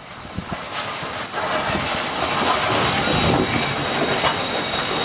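Steam train passing close by, its wheels clattering over the rail joints; the noise builds over the first two seconds and then holds steady.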